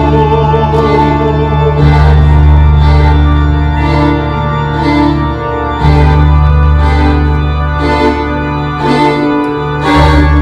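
Slow instrumental music with an organ-like sound: long held bass chords that change about every four seconds, with a melody of held notes above them.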